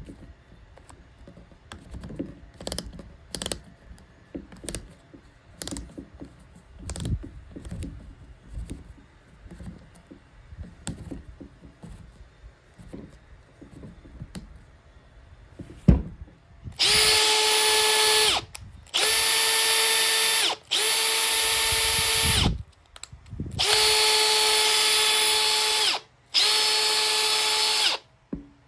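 Makita DF481D cordless driver drill, fitted with a new gear assembly and chuck, run five times in short bursts of about two seconds, each at a steady pitch with a high whine. Before that, a series of light clicks and knocks from handling.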